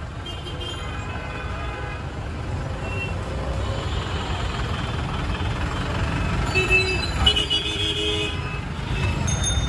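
Busy city street traffic heard from a cycle rickshaw: a steady rumble of motor vehicles alongside, with short horn toots, a cluster of them about seven seconds in.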